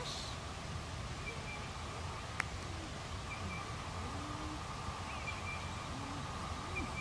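Steady outdoor background hiss with a few faint bird chirps and a single sharp click about two and a half seconds in.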